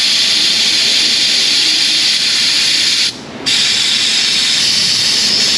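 Venturi-type vacuum coolant refiller running on compressed shop air, giving a loud, steady hiss as it pulls a vacuum on a car's cooling system. The hiss drops out briefly about three seconds in, then resumes.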